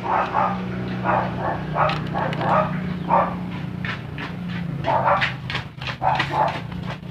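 A dog barking over and over in short bouts, with a pause of about a second and a half in the middle. A steady low hum runs underneath.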